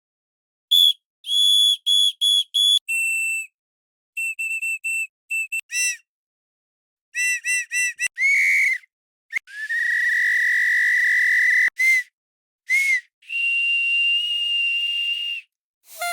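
A string of different whistles blown one after another at several pitches: single short pips, quick runs of short toots, and two long held blasts, each clip cut off clean with dead silence between.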